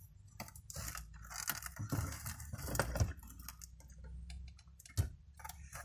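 A 2013 Subaru Legacy's factory head unit being worked out of the dashboard by hand: the metal housing and plastic trim scrape and rustle, with scattered small clicks and a sharper knock about five seconds in.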